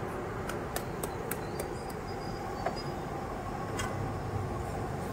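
Hand grater working cheese onto egg on a flat iron griddle, a light click with each quick stroke, about three a second for the first two seconds and once more near four seconds. A steady noisy background runs under it.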